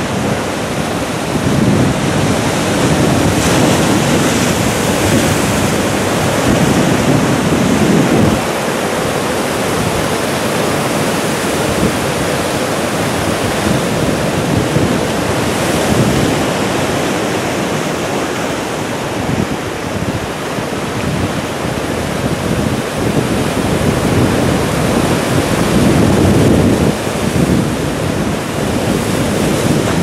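Ocean surf washing over and cascading off rocky shoreline shelves: a continuous rush of white water that surges louder for several seconds near the start and again near the end as bigger waves break.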